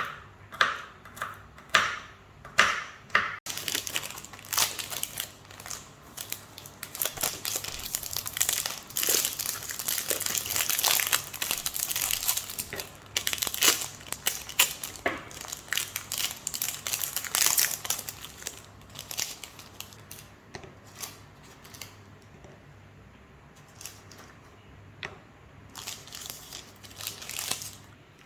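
Paper or plastic wrapping crinkling and rustling as it is handled, in quick dense bursts through the middle and sparser rustles towards the end.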